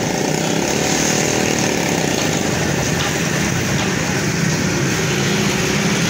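A motor-driven machine running steadily: a constant low hum with an even hiss over it.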